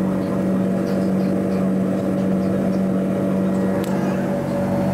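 Steady cabin drone inside a Boeing 777-200ER airliner: an even hum with a constant low tone. There is one faint click about four seconds in.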